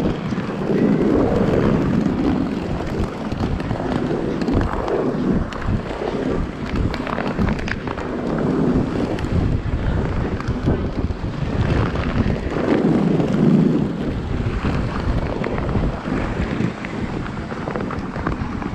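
Quad roller skate wheels rolling on a hardwood rink floor. The low rumble swells and fades every few seconds, with wind buffeting the microphone.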